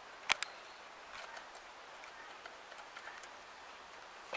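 Wrench on a bolt of an MTZ-80 tractor's gearshift housing cover, metal clinking on metal: one sharp click about a third of a second in, then a few faint ticks.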